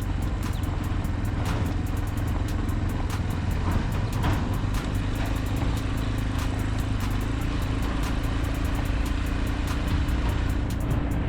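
A motor vehicle running: a steady low rumble with a constant hum over it, dotted with many short clicks.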